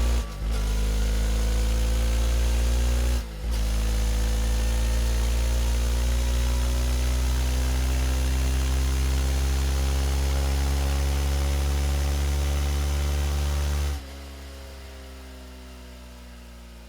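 Suzuki motorcycle engine under hard acceleration, its pitch climbing slowly. Two brief cuts, about a third of a second in and about three seconds in, are each followed by a lower pitch that climbs again, as with upshifts; about 14 seconds in the sound drops much quieter as the throttle closes.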